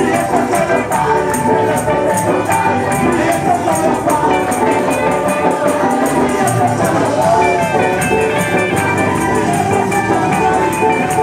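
Loud live worship music with singing. A tambourine and hand-clapping keep a steady beat.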